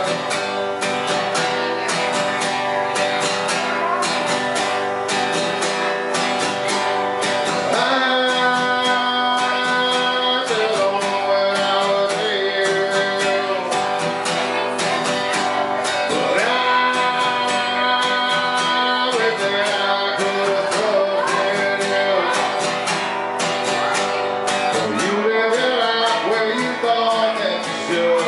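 Steel-string acoustic guitar strummed steadily, with a man singing held phrases over it into a microphone, live in a small room.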